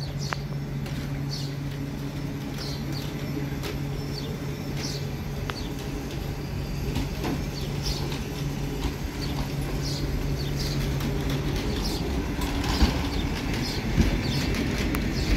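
Train at a station: a steady low electric hum that cuts off about twelve seconds in, giving way to a louder rumble with a few sharp clanks.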